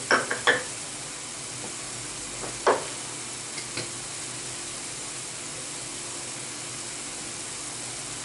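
Vegetables sizzling in oil in a frying pan, a steady hiss. Sharp clicks of a utensil against the pan come in a quick cluster at the start, once more at about three seconds in, and twice faintly just after.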